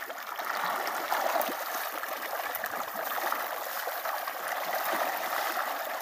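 Continuous dense splashing and pattering of a large school of tilapia churning the pond surface as they feed on scattered feed.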